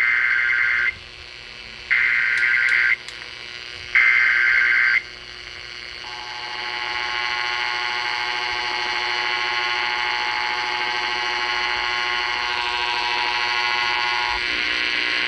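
Emergency Alert System header on an FM radio broadcast: three SAME data bursts, each a harsh warbling screech about a second long, a second apart, then the steady two-tone EAS attention signal for about eight seconds, which cuts off shortly before the end. These tones announce an emergency warning, here a flash flood warning.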